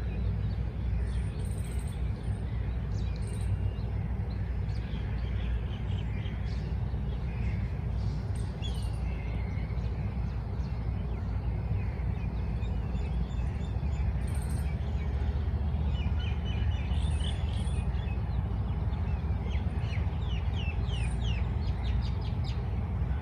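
Several birds chirping and calling, with scattered short chirps, a few very high ones and a quick run of chirps near the end. A steady low rumble lies under them and is the loudest part.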